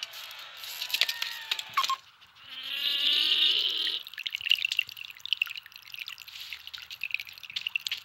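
Animated-film sound effects with the dialogue removed: a few sharp clicks, then a loud insect wing buzz for about a second and a half, then a fast run of chittering, ticking insect sounds.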